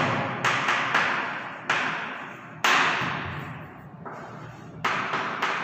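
Chalk writing on a blackboard: several sharp taps and scratchy strokes, each starting suddenly and fading away.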